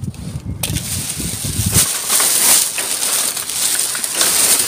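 Plastic bags crinkling and rustling as they are handled and pulled aside, a continuous crackly rustle that starts about half a second in.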